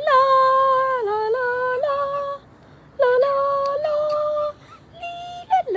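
Pet talking bird singing a tune in long, steady, held notes, in three phrases with short breaks between.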